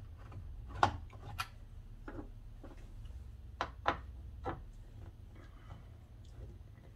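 Sharp clicks and taps of hand tools and plastic and metal door parts being handled, irregular, with the loudest about a second in and a cluster of three near the middle, over a steady low hum.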